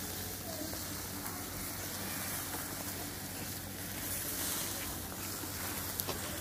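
Kebabs sizzling steadily on a charcoal grill, with a single short crackle about six seconds in.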